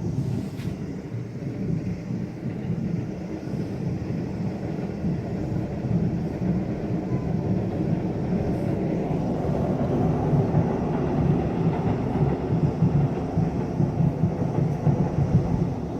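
Fireworks bursting at a distance, blending into a continuous deep rumble like thunder. The booms come thick and fast, growing denser and louder in the second half.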